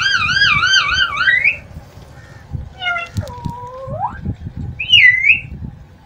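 Alexandrine parakeet calling. First comes a warbling whistle whose pitch wavers up and down about five times a second for a second and a half. Then a lower call dips and slides back up, and about five seconds in there is a short, loud, sharp squawk.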